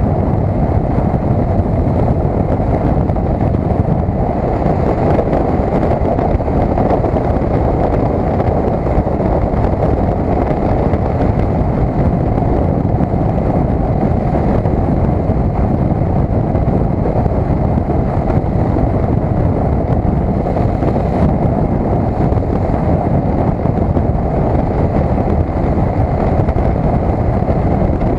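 Steady, heavy wind noise buffeting the built-in microphone of a cheap helmet-mounted action camera on a 2012 KTM 990 SMT motorcycle at road speed, with the bike running underneath it.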